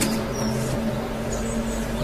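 A steady, unchanging low drone made of two held tones over a low rumble: the eerie, unexplained noise heard on and off for months, its source unknown. A couple of faint high chirps sound over it.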